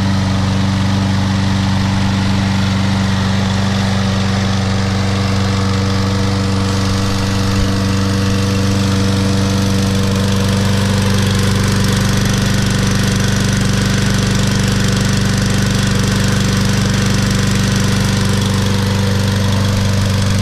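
Briggs & Stratton 6.75 hp mower engine on a Troy-Bilt push mower running at a steady speed, smooth and even.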